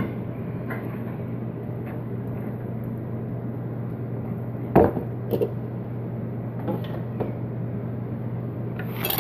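Scattered taps and knocks of a child's plastic knife on a plastic cutting board, with one sharper knock about five seconds in and a few lighter ones after it. A steady low hum runs underneath.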